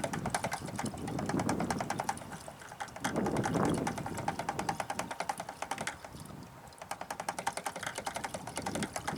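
Gasoline being poured from a gas can into a push mower's fuel tank, the spout glugging in a rapid, even run of clicks, with a louder low rumble about three seconds in.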